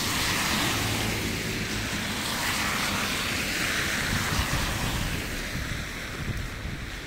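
Car tyres hissing on a snowy road as a taxi passes close by, the hiss fading over the first few seconds, with steady street traffic noise behind.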